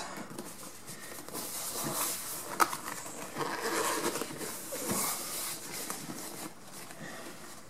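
Handling noise of a motorcycle seat cover being pulled and smoothed down over Dacron padding: soft rustling and rubbing, with one sharp tap about two and a half seconds in.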